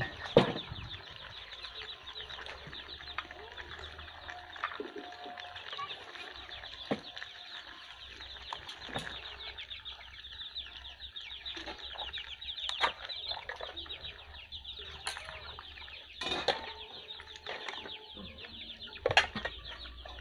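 Pot of vegetable soup bubbling at a rolling boil, with a metal ladle now and then clinking and scraping against the pot as it is stirred.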